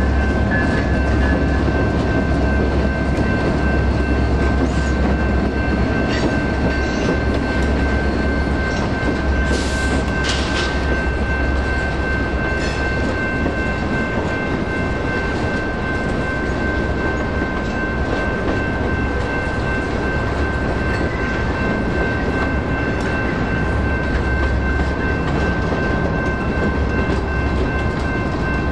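Freight cars of a Union Pacific local train rolling steadily past over a grade crossing, with constant wheel-on-rail noise and clatter. The crossing's warning bell rings throughout, and there is a short sharp metallic screech about ten seconds in.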